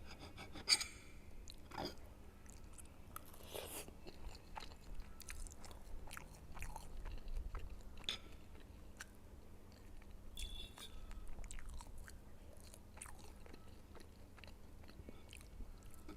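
A person chewing food close to the microphone, with soft wet smacks and small mouth clicks scattered throughout.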